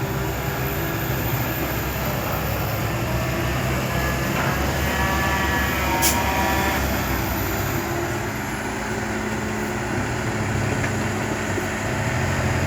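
Heavy diesel earthmoving machinery running steadily, with a brief higher whine in the middle and a single sharp knock about six seconds in.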